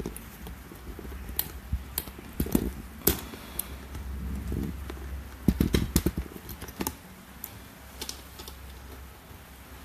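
Irregular clicks and light knocks, bunched in two clusters about one and a half and five and a half seconds in, over a low steady hum.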